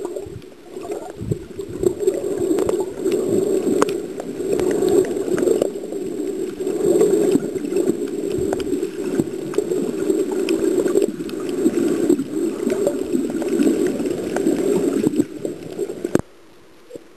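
Underwater sound picked up by a camera while snorkeling over a coral reef: a muffled, swelling rush of water with many scattered clicks and crackles. It cuts off suddenly about a second before the end, leaving a faint hiss.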